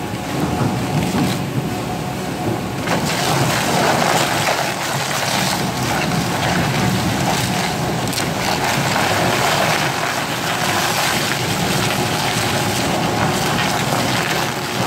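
Four-shaft shredder running, its rotating cutter discs tearing through bags. A steady mechanical noise with a rougher, tearing rustle that grows louder about three seconds in.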